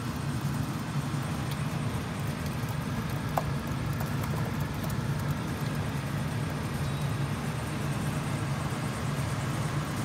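Steady low mechanical hum.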